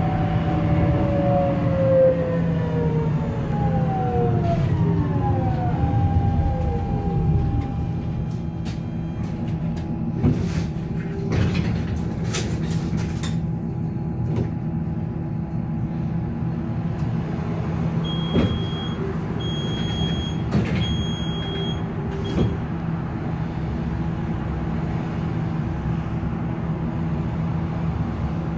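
Duewag MGT6D low-floor tram slowing down, its electric drive whine falling steadily in pitch over the first seven seconds as the tram comes to a stop. It then stands with a steady hum and a few sharp clicks, and from about eighteen seconds a high electronic beep sounds in four pulses.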